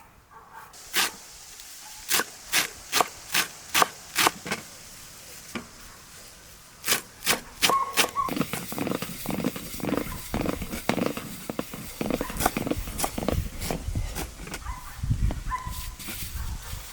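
A run of sharp knocks, about two or three a second, then from about seven seconds in a faster, denser clatter of knocks and thuds.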